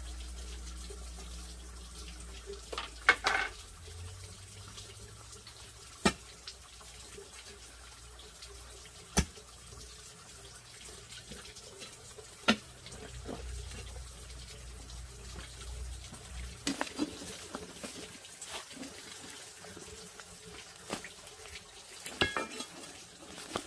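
Water running and splashing, with a sharp knock every three seconds or so and a cluster of small clicks near the end; a low rumble underneath stops about two-thirds of the way through.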